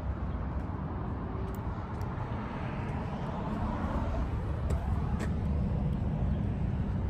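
Steady low rumble of outdoor road traffic, growing a little louder in the second half.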